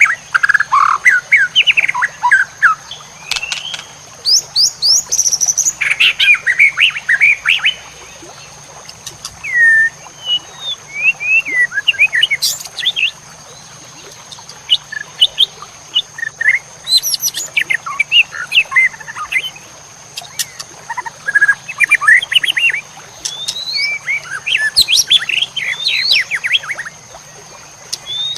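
Recorded songbird song: loud bursts of rapid chirps, trills and gliding whistles, each a second or two long, with short pauses between them, over a steady high-pitched whine.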